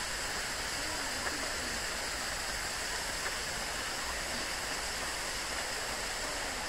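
Running water rushing steadily, an even, continuous hiss with no breaks.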